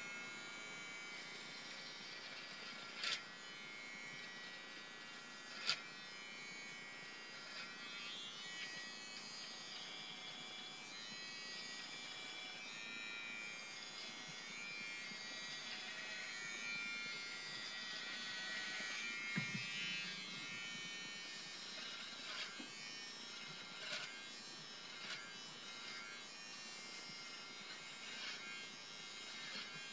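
BaByliss for Men i-stubble electric beard trimmer buzzing steadily as it cuts neck and jaw hair. A few short clicks sound over the buzz, the clearest about three and six seconds in.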